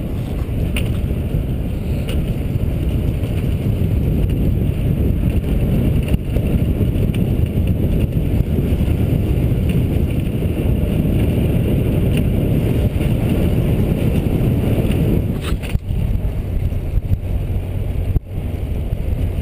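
Wind buffeting the microphone of a GoPro Hero whose case is stuffed with cotton batting to damp wind noise, as the rider moves along on a recumbent trike. It is a loud, steady low rumble, briefly dipping twice near the end.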